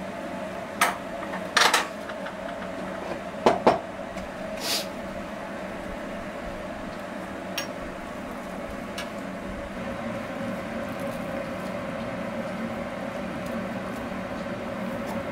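Chopsticks and a metal spoon knocking against a frying pan and dishes: a few sharp clinks in the first five seconds, then a couple of fainter ones, over a steady background hiss.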